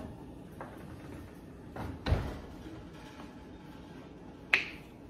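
Quiet kitchen handling sounds: a dull knock about two seconds in and a single sharp click near the end, as a squeeze bottle of ketchup is picked up and handled over a pan.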